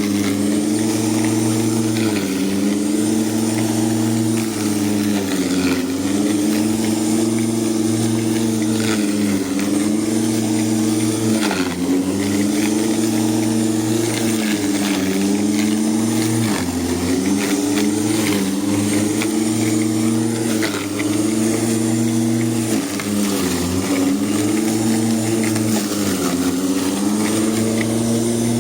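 Ozito lawn mower's motor running steadily while cutting long grass, its pitch dipping briefly every couple of seconds as the blade takes on load.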